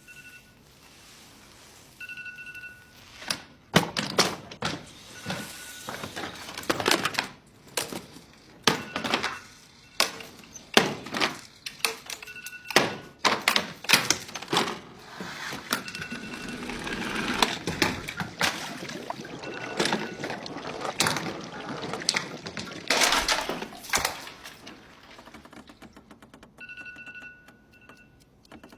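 Electronic alarm clock beeping, a single high tone in short bursts, broken up by a long run of loud thuds and knocks. The beeping comes back near the end.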